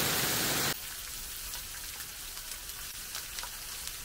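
Heavy rain falls for under a second, then cuts off sharply to pork belly sizzling on a grill pan, a quieter hiss with small crackling pops.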